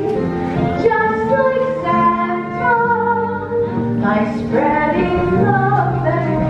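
Music: a woman singing a melody with instrumental accompaniment, in long held notes.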